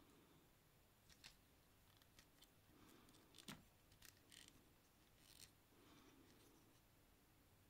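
Faint, scattered clicks of hard plastic as a Transformers Dragstrip figure's joints and parts are moved and posed by hand, the sharpest click about three and a half seconds in.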